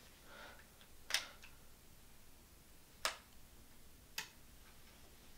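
Three short, sharp clicks at uneven spacing, a little after a second in, about three seconds in and about four seconds in, over quiet room tone.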